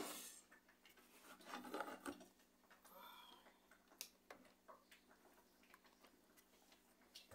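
Near silence with faint handling noises and a few soft clicks.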